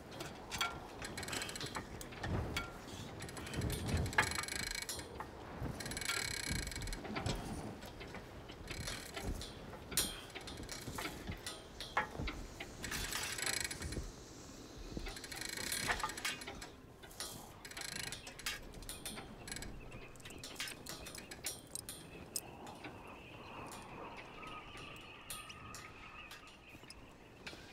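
Sailboat deck gear, winches and blocks, clicking and ratcheting in a run of sharp clicks and knocks that grows quieter in the last third.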